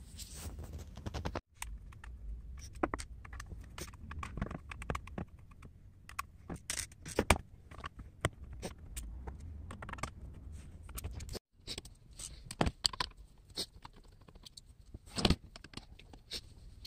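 Screwdriver work on a steel computer power supply case: scattered small metallic clicks and taps as screws are undone, and the loosened screws are handled and set down.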